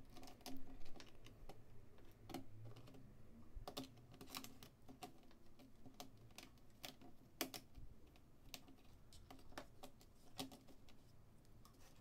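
Faint, irregular plastic clicks and snaps as a plastic pry tool works along the seam of a laptop's bottom cover, prying the case apart and releasing its plastic clips.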